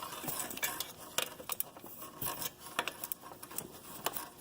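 Irregular metallic clicks and clinks from a socket wrench working the 10 mm bolts on a Geo Metro manual transaxle's fifth-gear end cover.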